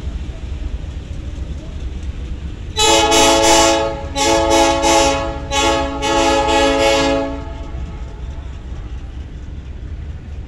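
Train air horn sounding a chord in about four blasts, from about three seconds in to about seven seconds in, over the steady low rumble of the illuminated passenger train rolling by.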